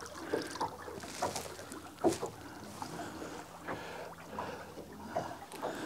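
Quiet sounds aboard a small boat at anchor: water lapping against the hull, with scattered soft knocks at irregular intervals.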